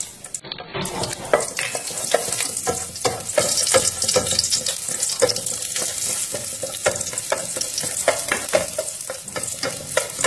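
Chopped shallots sizzling in hot cooking oil in a stainless steel pot, with wooden chopsticks stirring them and clicking against the pot.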